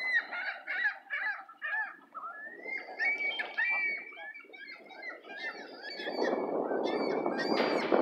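A flock of gulls calling: many short, repeated squawks and yelps overlapping. About six seconds in, a loud rough rushing noise comes in beneath the calls.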